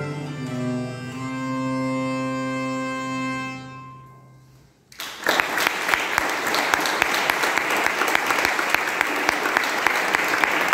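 Viola da gamba and hurdy-gurdy end a piece on a held chord over a steady low drone, fading out about four seconds in. After a brief hush, an audience breaks into applause.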